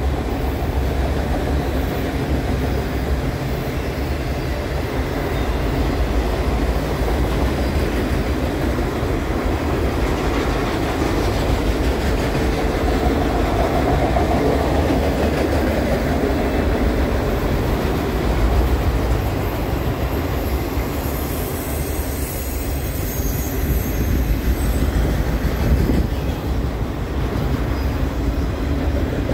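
Autorack freight cars rolling past at track side: steel wheels running on rail in a steady, continuous noise.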